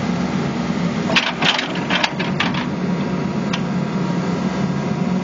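New Holland Kobelco E80B midi excavator's diesel engine running steadily, with a quick cluster of sharp clicks and scrapes about a second in and one more click near the middle.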